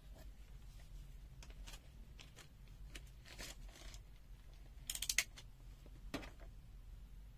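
Faint scattered clicks and rattles of a multimeter and its test leads being handled, probably the rotary function dial being turned, with a quick cluster of clicks about five seconds in.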